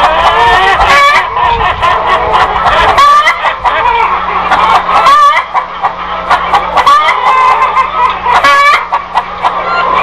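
Several chickens clucking and squawking continuously, their calls overlapping, with a few louder squawks standing out.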